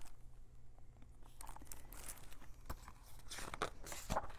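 Faint paper rustling and a few soft ticks as the pages of a large picture book are handled and turned, mostly in the second half.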